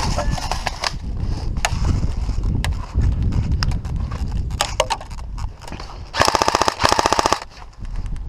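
An airsoft electric gun firing a rapid full-auto burst of about a second, close to the microphone, about six seconds in. Before it, rough low rumble and scattered clicks of movement on the head-mounted microphone.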